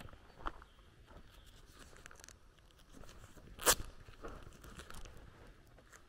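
Footsteps crunching on a gravel road: two steps at the start, a quieter pause, then one sharp, loud crunch about two-thirds of the way in, followed by a couple of softer steps.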